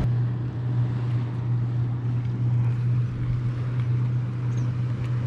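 A Minn Kota PowerDrive 12-volt electric trolling motor running on a low setting: a steady low hum, over wind and water noise.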